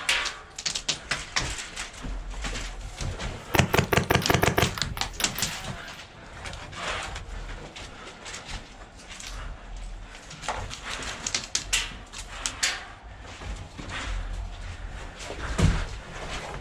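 HPA airsoft rifle, a Wolverine MTW, firing a fast burst of rapid shots a few seconds in, followed by a few scattered single shots and clicks.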